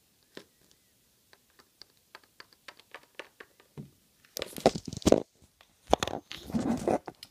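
Small plastic Littlest Pet Shop figure tapped along a window sill in a run of light clicks, then loud rustling and rubbing twice as a finger brushes close over the phone's microphone.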